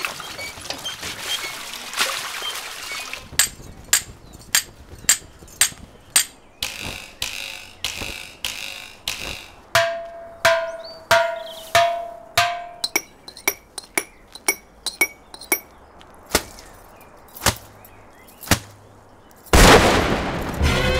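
Film soundtrack of sparse, irregular sharp knocks and strikes, with a run of regular rasping strokes and then five short squeaky pitched notes. About a second and a half before the end, a loud dense rush of sound comes in abruptly, as galloping riders appear.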